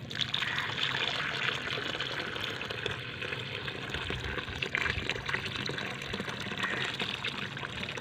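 A steady stream of water pouring and splashing into a hollow in a mound of dry sand and soil, filling a muddy pool that froths with bubbles.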